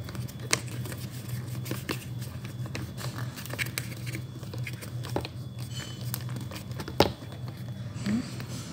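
Clear plastic cup and parts of a Youha Gen 2 hands-free breast pump being handled and fitted together: a string of light plastic clicks and taps, the sharpest about seven seconds in, over a steady low hum.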